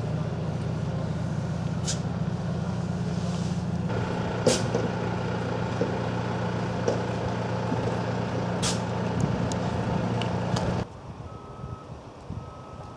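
A heavy vehicle's engine runs steadily nearby, with a few short sharp hisses over it, then cuts off abruptly near the end. After that, a reversing alarm beeps about once a second.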